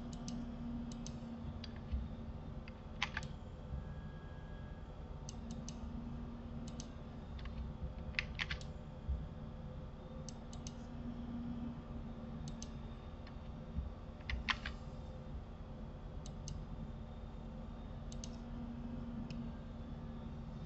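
Scattered clicks of a computer keyboard and mouse, single and in quick pairs, spread irregularly over a steady low hum.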